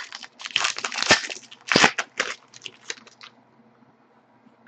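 Wrapper of a hockey trading-card pack crinkling and crackling as it is torn open and handled, in quick uneven bursts that stop a little over three seconds in.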